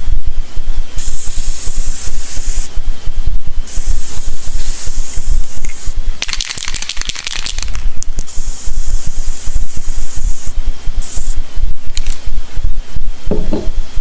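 Aerosol spray can hissing in several sprays, the longest and strongest about six seconds in, over constant low rattling and knocking from the can being handled.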